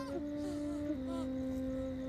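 Background music: a low held drone note that steps slightly lower about a second in, with a few short, faint sliding phrases above it.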